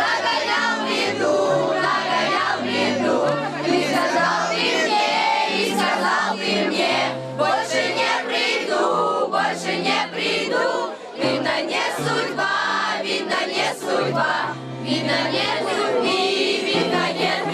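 A group of children singing a song together over an instrumental backing track with a steady, stepping bass line.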